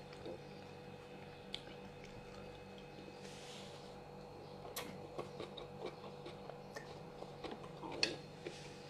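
Faint scattered clicks and ticks over a steady low hum, busier in the second half, with a sharper click about eight seconds in.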